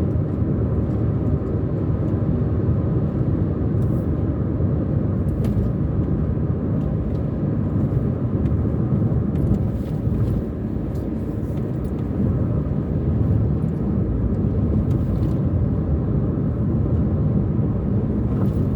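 Steady road noise of a car driving at a constant speed: engine and tyres humming low and even, with a brief slight dip about halfway through.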